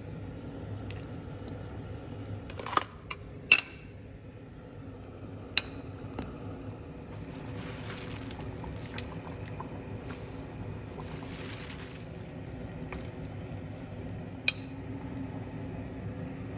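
Kitchen handling around a glass cooking pot: a few sharp clinks and knocks of utensils and dishes, and soft liquid sloshing twice in the middle, over a steady low hum.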